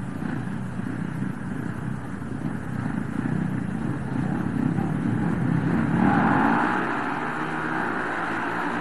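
Several speedway motorcycles with single-cylinder 500 cc methanol engines revving together at the start gate. About six seconds in the sound swells and brightens as the bikes launch off the line.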